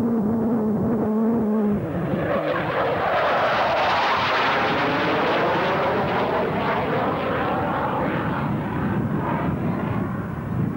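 General Dynamics F-111's twin turbofan engines, a loud steady jet roar with a sweeping, phasing quality as the aircraft flies past. The roar swells to a peak about four seconds in and eases slightly near the end. A low steady hum sits under it for the first two seconds.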